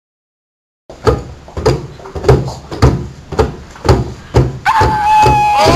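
Silence for about a second, then background music: a steady drum beat at about three hits a second, with a held melody line coming in near the end.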